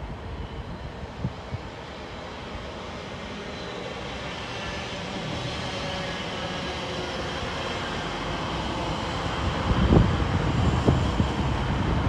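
Class 345 Crossrail electric multiple unit approaching and running past, its wheel and rail noise growing steadily louder, with a couple of low thumps near the end.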